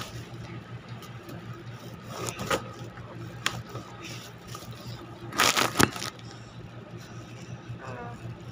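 Phone microphone handling noise: clothing rubbing and scraping against the mic, with a few sharp knocks and a louder rustling burst about five and a half seconds in, over a steady low hum.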